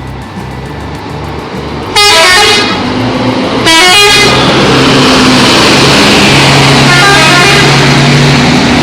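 Indonesian 'telolet' bus horn, a multi-note musical air horn, playing quick runs of notes. It sounds about two seconds in and again shortly after. A loud, sustained sound follows, with another run of horn notes about seven seconds in.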